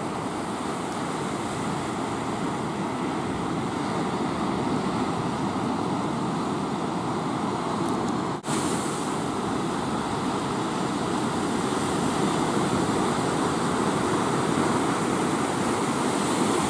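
Ocean surf: a steady wash of breaking waves, with a brief drop-out about eight and a half seconds in.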